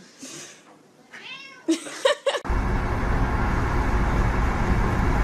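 A cat meows about a second in, with a couple of short sharp sounds just after. About halfway through, a loud, steady rushing noise starts suddenly and runs on.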